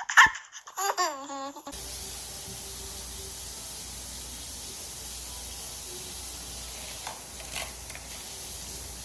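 A small child's laughing babble that breaks off suddenly, followed by a steady hiss with a faint hum underneath.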